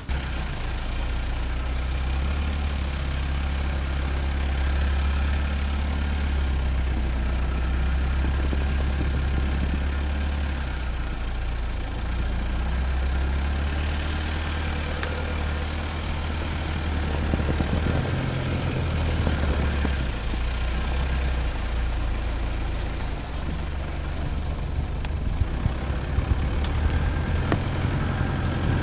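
Mitsubishi Pajero 4's 3.2 diesel engine running steadily at low speed as the SUV drives through snow, heard close to the front wheel with tyre noise in the snow. The engine note shifts for a couple of seconds about two-thirds of the way through.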